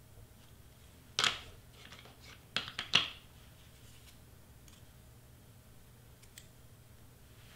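Hands handling a cardstock butterfly and setting a glue pen back in its stand: a sharp knock about a second in, then a quick cluster of crisp clicks and paper crinkles around three seconds in.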